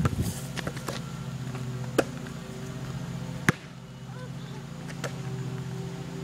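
A basketball striking hard surfaces during play: two sharp smacks about two and three and a half seconds in, with a few lighter taps, over a steady low hum.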